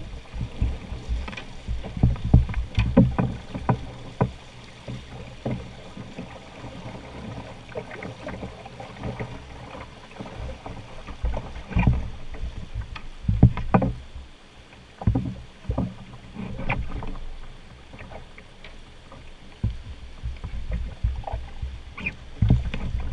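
Canoe being poled downstream through moving shallow water: river water rushing and slapping against the hull, with several sharp knocks of the wooden pole against rocks and the canoe.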